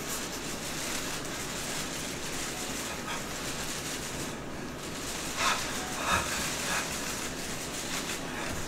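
Steady hiss of a theatre hall during a silent moment on stage, with three short breathy sounds a little past halfway.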